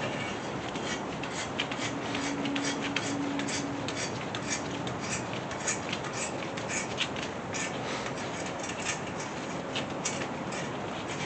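Irregular light metallic clicks and ticks over a steady hiss: hand tools chasing the head-bolt threads in a Chevy small-block 350 engine block.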